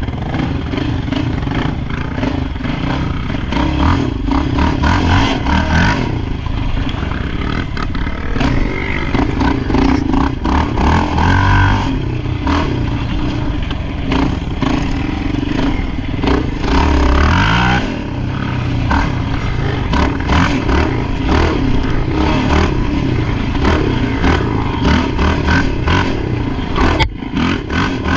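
ATV engine running under way, its pitch rising and falling as the throttle opens and closes, with a clear run up in revs a little past halfway. Steady rattling and knocking from the ride over rough ground runs through it.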